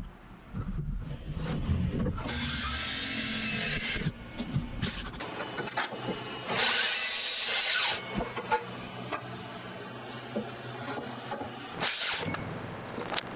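DeWalt mitre saw cutting through wood: two loud cuts of about one and a half to two seconds each, about two and six and a half seconds in, and a shorter burst near the end. Wooden blocks knock as they are set down on the workbench between the cuts.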